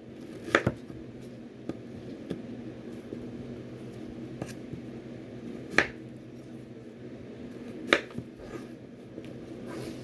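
Kitchen knife cutting vegetables into pieces and knocking on a cutting board: a few separate sharp knocks, the loudest about half a second in, near six seconds and near eight seconds, over a faint steady hum.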